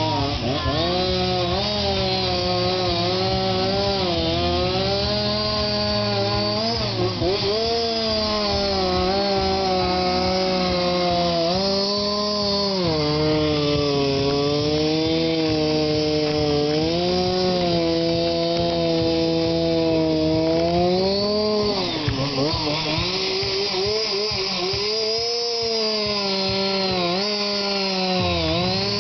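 Two-stroke chainsaw carving wood. The engine runs without pause, its pitch rising and falling as the bar cuts, with several deeper dips when the saw takes load and recovers.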